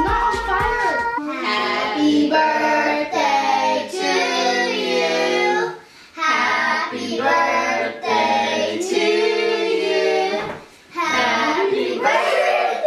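A child's singing voice carrying a melody in phrases, breaking off briefly about six seconds in and again near eleven seconds.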